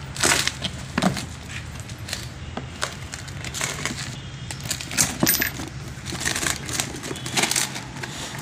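A cardboard LuK clutch-kit box being torn open by hand: irregular sharp tearing, scraping and snapping of card and tape, loudest just after the start and about a second in.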